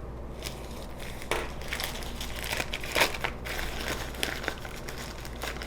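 Packaging being handled and opened: irregular crinkling and rustling with scattered small crackles, sharpest about a second and a half in and again at about three seconds.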